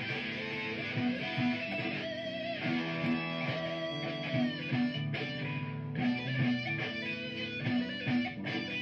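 Electric guitar playing an improvised lead, with sustained notes and vibrato, over a looped guitar part that keeps repeating underneath.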